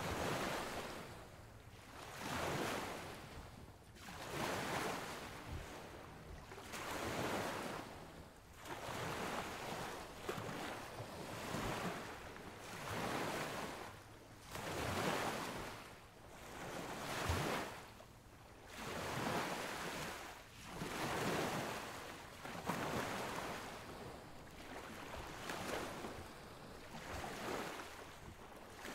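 Sea waves washing onto a sandy beach, the surf rising and falling in regular swells about every two seconds.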